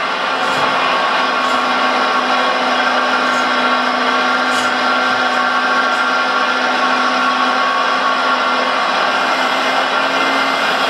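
Hydraulic pump of a radio-controlled Liebherr 956 excavator model running, a steady electric whir with a low hum underneath.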